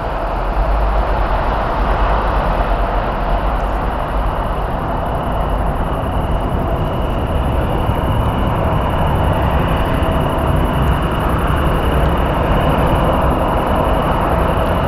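Jet airliner engines at takeoff thrust during a departure: a loud, steady rush of engine noise with a thin steady whine running through it.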